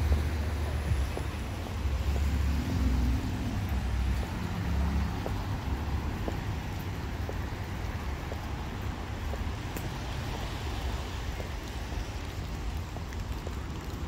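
Wind buffeting the microphone in gusts during roughly the first five seconds, then easing, over a steady outdoor noise.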